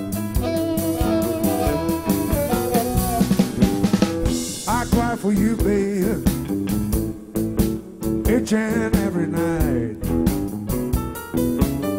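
Blues band playing: a drum kit keeping the beat with snare and rimshot hits under keyboard and lead lines whose notes bend up and down in pitch.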